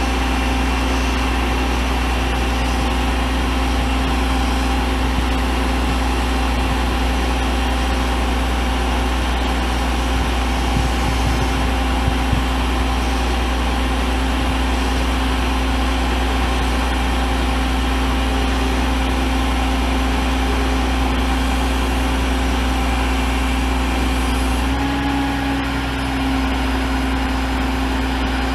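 International DT466E 7.6-litre inline-six turbo diesel idling steadily, with a brief dip and change in tone near the end.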